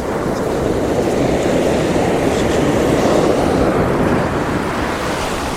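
Ocean surf breaking and washing up a sandy beach: a steady rushing noise that swells in the middle and eases off toward the end.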